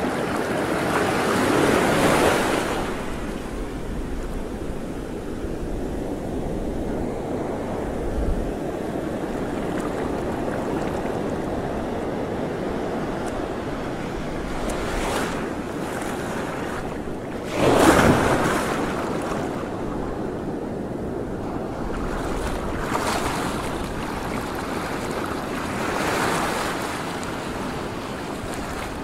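Sea water washing and lapping with wind buffeting the microphone, a steady rushing noise. It surges louder three times: near the start, most strongly and suddenly about two-thirds of the way through, and again near the end.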